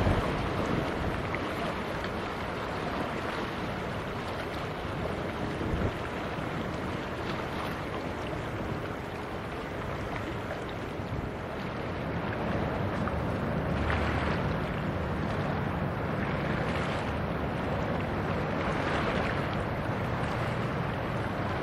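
Wind rushing over the microphone as a steady noise, with a short knock at the start and a couple of stronger gusts in the second half.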